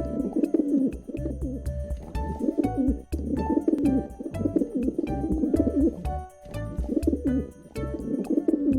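Low, throaty bird cooing, repeated in phrases with short breaks, over background music with light note-like tones.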